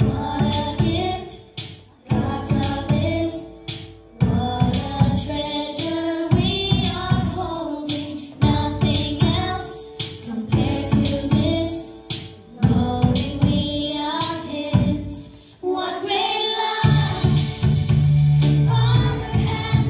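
A song with singing over a regular drum beat; a deep bass line comes in near the end.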